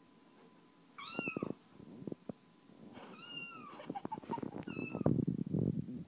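Cat meows played as a ringtone: an arching meow about a second in, a longer one around three seconds, and a short one near five seconds. Clicks and scuffling noises run among them and are loudest near the end.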